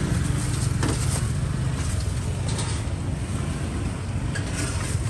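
Steady low rumble of busy street background, with a few faint clicks.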